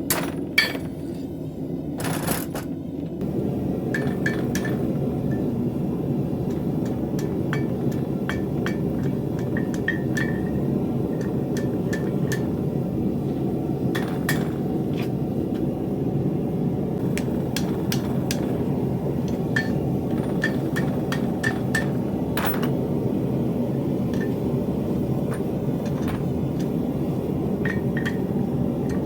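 Two hammer blows on steel in the first few seconds, then a steady low rushing noise dotted with light metallic clicks and pings.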